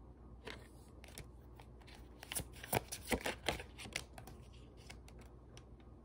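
Tarot cards being shuffled and handled by hand: a run of quick, irregular card snaps and flicks, busiest about two to four seconds in.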